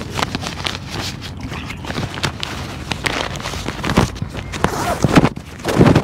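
A folded pop-up tent and its carry bag being handled and zipped up one-handed: irregular rustling and scraping with small clicks, and a few heavier thumps in the second half, the loudest near the end.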